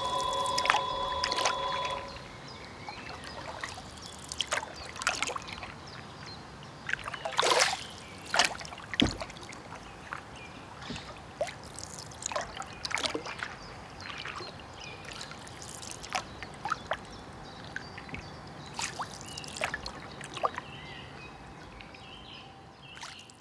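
Experimental live-performance soundscape. A held chord of steady tones cuts off about two seconds in. After that come sparse, irregular drip-like clicks and crackles with short falling pitch glides over a faint hiss.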